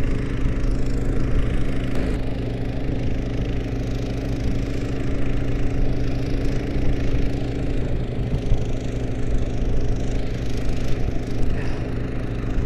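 Snowmobile engine running steadily at cruising speed, a constant hum of engine tones over a rushing noise, heard from the sled it is towing.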